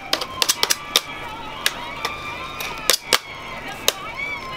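Candy scrapers knocking and scraping against each other as sticky hard-candy syrup is cleared off the blade: a quick run of sharp clicks in the first second, then a few single clicks and a close pair.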